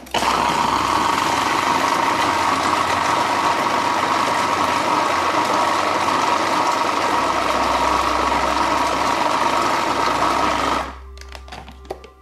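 Electric food processor running steadily with a whine, blending a creamy cheesecake filling of condensed milk and lemon juice until it is smooth and free of lumps. It starts at once and stops about a second before the end.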